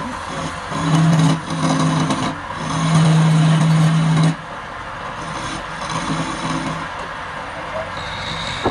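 A wood lathe spins a wooden spindle while a hand-held chisel cuts it, giving a scraping hiss of shavings over a low hum. The hum swells in stretches and drops sharply about four seconds in, leaving a quieter cutting hiss.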